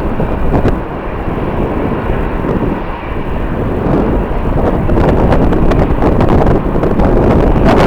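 Jet airliner's engines rushing, with strong wind buffeting the microphone in gusts.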